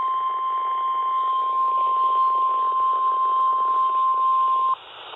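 NOAA Weather Radio 1050 Hz warning alarm tone, one steady high beep heard through a radio's speaker over static hiss, cutting off sharply near the end. The tone is the attention signal that announces a warning message.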